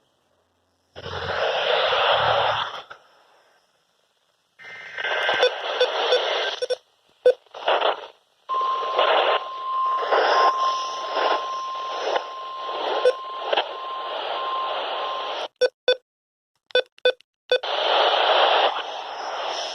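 Weather radio receiver hissing with static on a weak signal, cutting in and out in stretches with sudden drop-outs to silence. A steady tone sounds through the static for about seven seconds in the middle.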